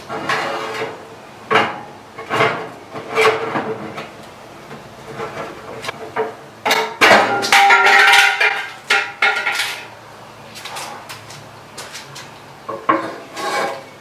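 Sheet-metal furnace housing and flashing clanking and knocking as it is worked loose, with a louder stretch of metallic scraping and ringing about seven to nine seconds in.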